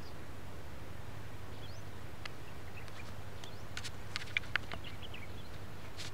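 Donkey cropping and chewing grass: scattered short crisp crunches, bunched together about four seconds in, over a steady low hum, with a few faint bird chirps.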